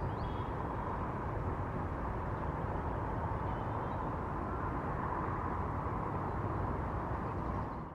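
Steady outdoor background noise from the camera's field recording: an even hiss and low rumble with no single clear source, fading out near the end.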